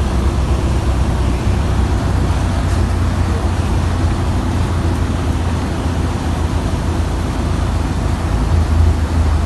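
Floodwater rushing and splashing around a vehicle wading through a flooded street, over a steady deep rumble that grows a little stronger near the end.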